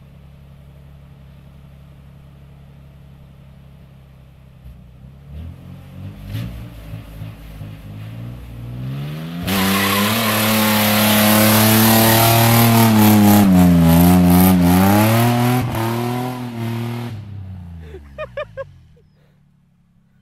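Stock Nissan 300ZX (Z31) V6 with a non-welded differential idling, then revving and doing a burnout. About ten seconds in, tyre screech sets in loud over the high-revving engine and lasts about seven seconds, with the revs wavering up and down. Then the engine and tyre noise fade away.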